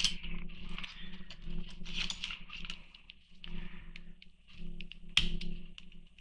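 Small sharp clicks and scrapes of a die-cast toy car and a drill bit being handled, right after the car's rivet is drilled out, with a low hum that comes and goes.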